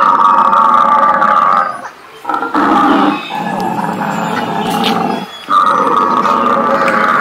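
Recorded dinosaur roars played for a model dinosaur exhibit: three long, loud roars, each two to three seconds, with short breaks about two and five seconds in.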